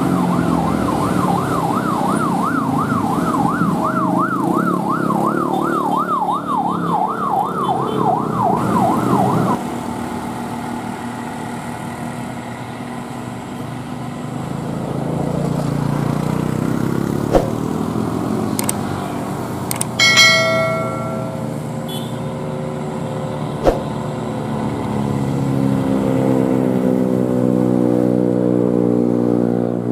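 Heavy diesel truck engines and road traffic on a steep climb. A siren warbles rapidly up and down, about two and a half cycles a second, then stops about a third of the way in. A short horn blast sounds about two-thirds of the way through, and near the end an engine's pitch rises as it pulls harder.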